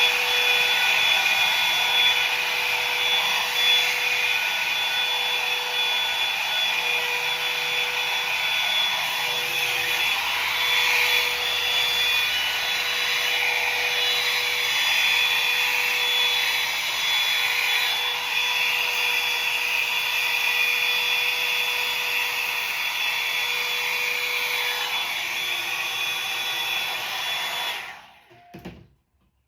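Hair dryer running steadily, a rush of air with a steady high whistle, switched off near the end.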